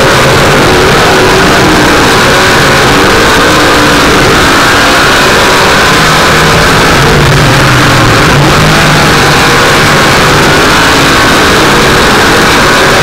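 Off-road vehicle engine running hard and very loud, its pitch rising and falling as the throttle works during a hill climb.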